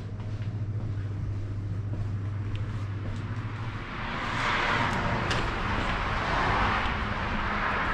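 A steady low hum, then from about four seconds in a broad rushing noise that swells and eases slightly, like a road vehicle passing by.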